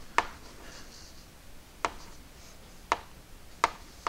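Chalk tapping and scratching on a blackboard as a word is written: five sharp, irregularly spaced taps of the chalk striking the board.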